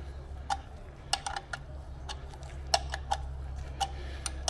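Hand ratchet clicking in short, irregular runs as a thread tap is wound back out of the freshly tapped oil pan drain-plug hole, over a steady low hum.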